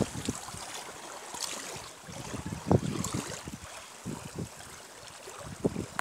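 Open water lapping and washing among drifting spring ice floes, with wind buffeting the microphone in irregular gusts. The strongest gust comes about two and a half seconds in.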